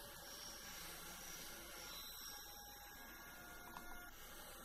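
Near silence: faint room tone with a steady low electrical hum and hiss, and a couple of faint ticks about four seconds in.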